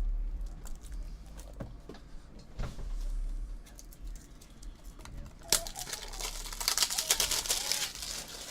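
Plastic card holders and a trading card being handled: scattered light clicks, then a dense run of rapid crackling clicks for about the last three seconds, as a thick relic card is fitted into a top loader.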